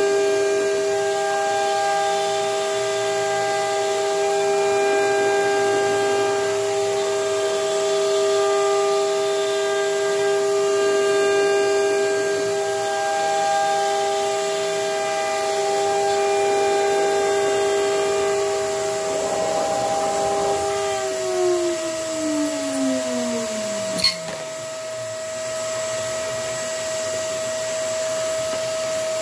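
CNC router spindle whining steadily as it mills into a wooden board, then winding down with a falling pitch over a few seconds about three quarters of the way in. A vacuum hose sucking up the chips gives a second steady whine alongside, with a sharp click just after the spindle slows.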